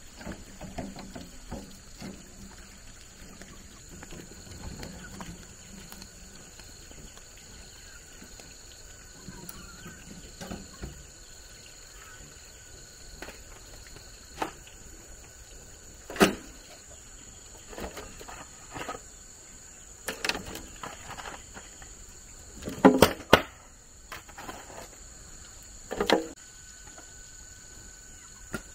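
Scattered sharp knocks and thumps, a few louder ones in the second half, over a steady high-pitched insect drone.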